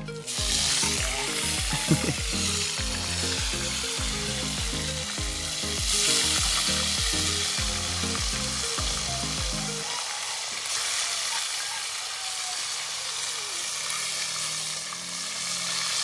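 Fish frying in a pot of hot oil: a loud, steady sizzle that jumps up right at the start as pieces of fish are lowered in, and swells again about six seconds in. A low, regular beat of background music runs under the first ten seconds or so.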